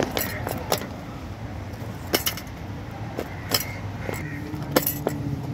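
Several sharp metallic clinks at irregular intervals as a steel knife knocks against an iron charcoal brazier while a papad is roasted over the coals, over a steady hum of street traffic.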